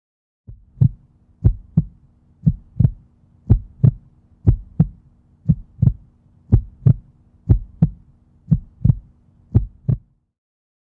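Heartbeat-style sound effect: pairs of low thumps, lub-dub, about once a second over a faint steady hum, starting about half a second in and stopping near the end.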